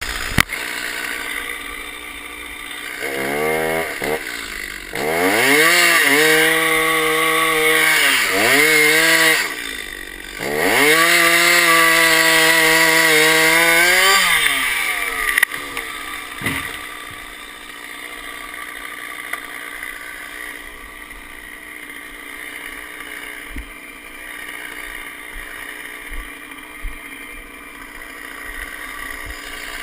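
Gas chainsaw revved in several bursts as a tree is cut: each burst rises in pitch, holds, then falls back, the longest about four seconds. After about fifteen seconds the saw goes quiet, leaving a low steady background with a few short knocks.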